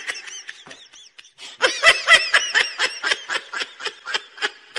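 High-pitched laughter: a few short chirp-like squeals, then from under two seconds in a rapid run of giggles, about five a second, that fades near the end.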